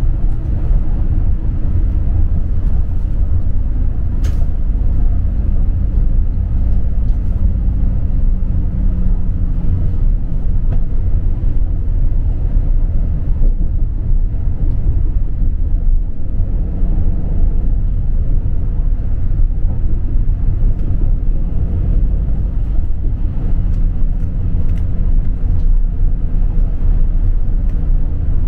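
Steady low rumble of a city bus driving along, its engine and road noise heard from inside the passenger cabin, with a faint engine hum that rises and fades at times. A light click sounds about four seconds in.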